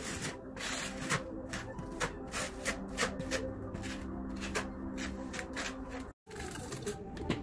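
A hand trowel scraping and spreading mortar across a flat board in quick, irregular strokes, over a steady low hum. The sound cuts out completely for a moment near the end.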